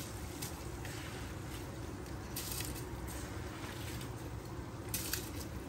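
Rice tipped from a plastic bowl into a pot of boiling water, with a few brief rushing splashes as it slides in, over the steady low bubbling of the pot.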